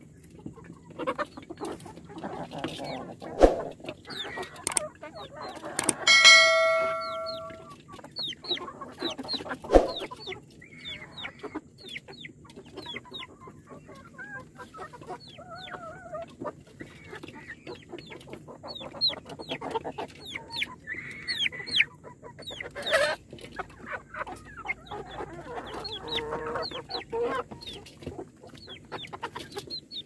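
A flock of Kadaknath chickens clucking and chirping with many short calls, over a few sharp taps. About six seconds in there is one loud ringing tone that fades out over a second and a half.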